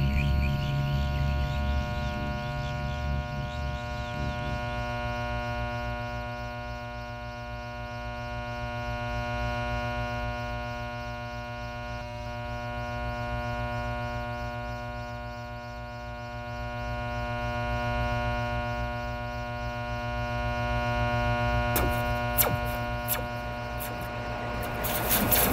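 Sustained synthesizer drone: a steady chord of many held tones that slowly swells and fades every few seconds. Near the end come a few sharp clicks, and then a fast mechanical rattle sets in.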